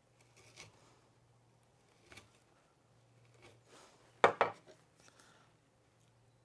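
A 1-inch bench chisel paring by hand down the walls of a routed mortise in wood: a few soft scrapes of the blade against the end grain, and a single sharp knock about four seconds in, the loudest sound.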